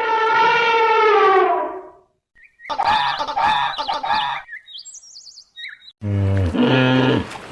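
A run of different animal calls: first a long, slightly falling call, then a warbling call, a few short high chirps, and a lower, buzzier call near the end.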